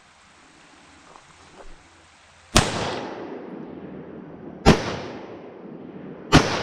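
Three gunshots about two seconds apart, each loud crack followed by a long echoing tail.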